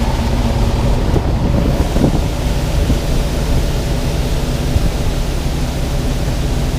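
Truck engine running steadily with a low rumble, under a steady rushing noise.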